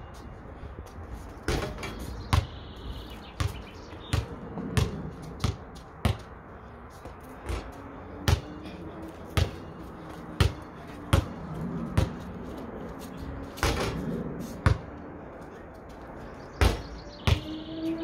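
A basketball being dribbled and bounced, a run of sharp thuds at an irregular pace of about one or two a second.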